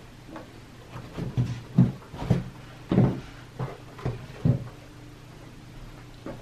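A pair of shoes being picked up and set down on seamless backdrop paper: a run of about eight soft thumps and knocks, starting about a second in and ending around four and a half seconds.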